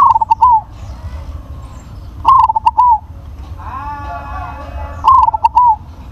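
Zebra dove (perkutut) cooing: three loud, identical phrases about two and a half seconds apart, each a quick run of short coos ending in a longer drawn note. A fainter call from another bird comes between the second and third phrases.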